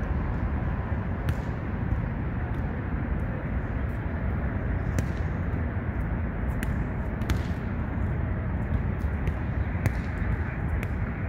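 Players' hands and forearms smacking a volleyball during a rally: sharp, irregularly spaced slaps every second or so over a steady low rumble.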